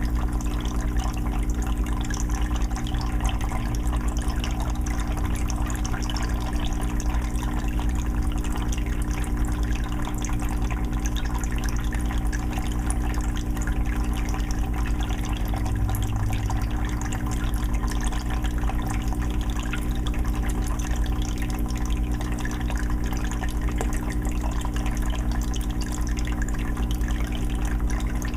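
Aquarium filter running in a 20-gallon fish tank: water steadily trickling and bubbling, with a steady low hum underneath.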